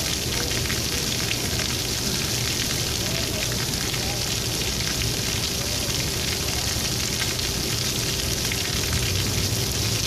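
Shower running: a steady hiss of water spraying.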